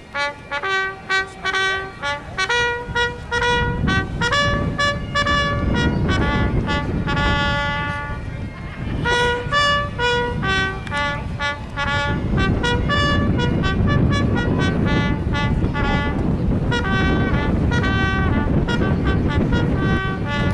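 Solo bugle playing a call: a line of separate, clear held notes that step up and down in pitch, with a low rumbling noise underneath much of it.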